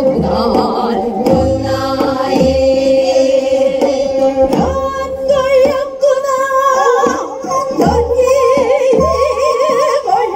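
Female singers in the southern Korean namdo folk-song style, their held notes wavering with heavy vibrato, accompanied by a barrel drum with low thumps every second or so.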